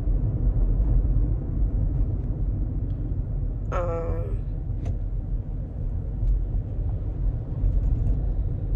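Steady low road and engine rumble inside a moving car's cabin. About four seconds in, a brief pitched hum is heard.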